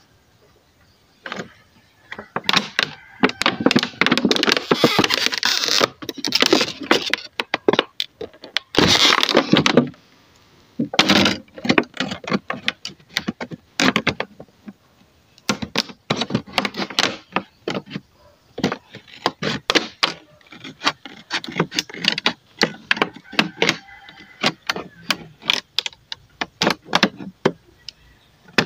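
Scissors cutting through a large thin plastic bottle, the plastic crackling and crinkling with sharp snips and clicks. The crackling is densest in the first third, then thins to scattered snips.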